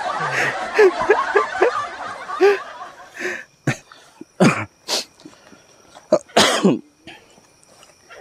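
A man's voice making short chuckling sounds, then a run of about five harsh coughs spread over four seconds, with a faint steady high tone behind them.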